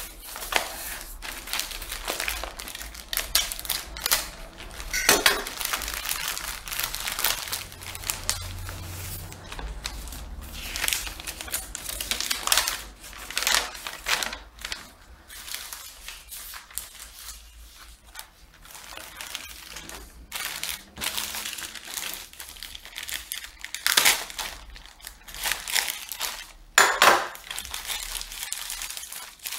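Plastic packaging bags crinkling and rustling as they are handled and pulled open by hand: irregular rustles with a few sharp, louder crackles.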